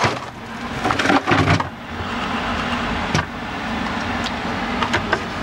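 Rummaging in an open, frosted freezer: a few knocks and clatters of frozen packages and shelving, then a steady rushing noise with a few sharp clicks.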